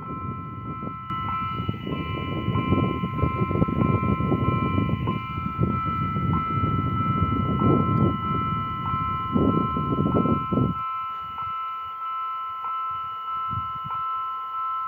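Railway level crossing warning signal sounding a continuous electronic tone, several pitches held together with a faint regular tick, while the crossing's red lights are lit. A low rumbling noise lies under it and drops away about eleven seconds in.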